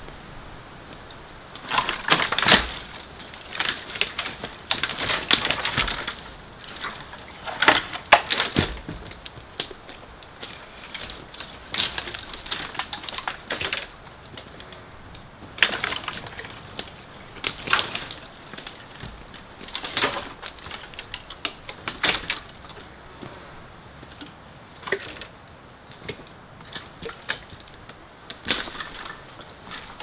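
Footsteps crunching over dry twigs and dead spruce branches on the forest floor, with sticks snapping and cracking in irregular bursts.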